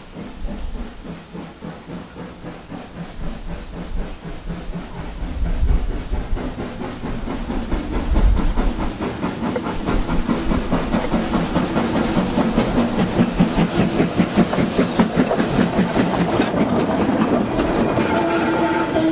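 Industrial tank steam locomotive working past with a train of coal hopper wagons: its exhaust beats in a steady rhythm, growing louder as it approaches, with steam hiss and the wagons rolling and clanking over the rail joints. A steam whistle starts sounding near the end.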